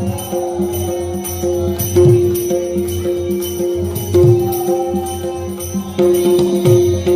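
Dashavtar folk music: a steady held note under a rhythm of low drum strokes and jingling metal percussion.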